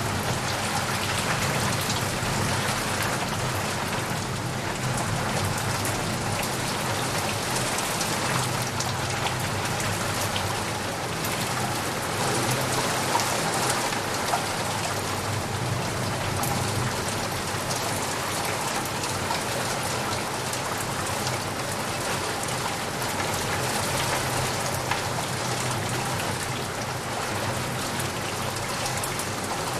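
Heavy rain falling steadily, with dense drops spattering on leaves and puddles.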